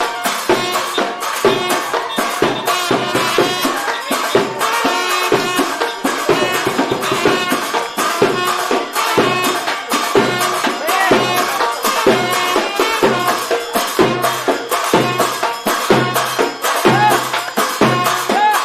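Egyptian folk music played without singing: a brisk, even hand-drum beat with tambourine-like jingles under a melody line.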